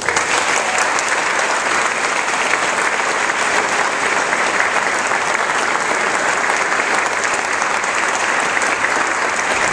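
A congregation breaks into loud applause, starting suddenly and then holding steady.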